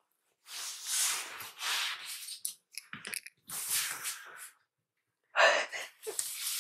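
A person moving about and handling things: a few short bursts of rustling and shuffling, separated by silent gaps, with the loudest burst about five seconds in.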